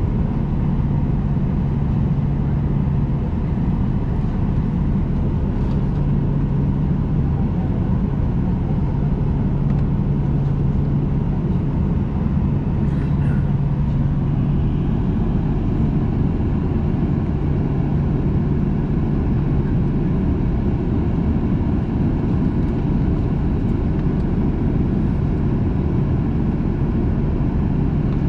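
Steady cabin noise inside a Boeing 737-800 on the ground: its CFM56-7B turbofans at idle thrust during taxi, a steady hum over a low rumble.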